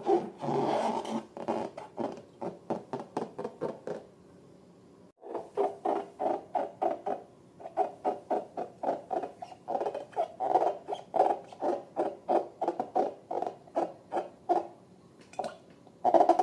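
Slime being squeezed and worked by hand, giving a fast run of short sticky squelching clicks, about five a second, with a break of about a second some four seconds in.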